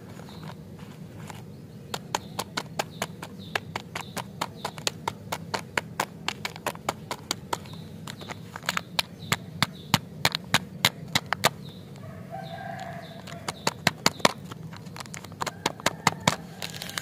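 Plastic lollipop wrappers crinkling and clicking as they are handled, in irregular bursts of sharp crackles several times a second, over a steady low hum. A brief faint pitched sound comes about three-quarters of the way through.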